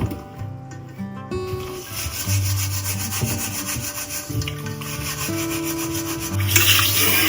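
Rhythmic back-and-forth scrubbing of a surface with a cleaning brush or sponge, over soft background music. Near the end a louder hiss of running water starts.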